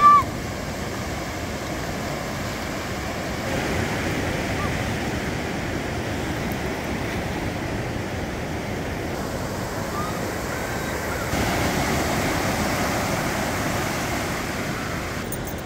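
Ocean surf washing steadily onto a sandy beach. A short, loud, high-pitched cry sounds right at the start, and a few faint short calls come later.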